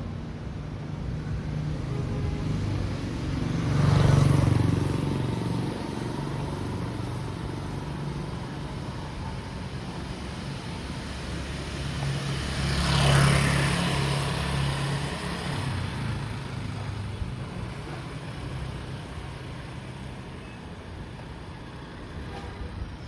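Two motor vehicles pass close by, one about four seconds in and another around thirteen seconds, each swelling and fading over a steady background of street traffic.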